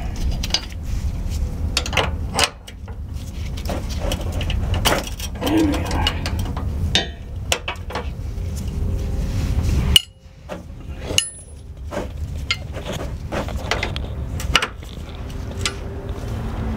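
Metal wrenches clinking and scraping on the fuel filter's line fittings as they are fitted and worked loose, in irregular clicks and knocks over a steady low hum.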